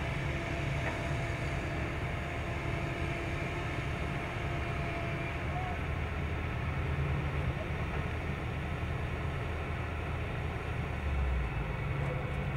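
Steady low rumble of heavy machinery engines idling, from the excavator and the utility boom truck working at the pole.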